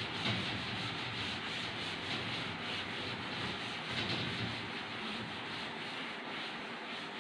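A duster rubbing chalk off a blackboard in steady wiping strokes.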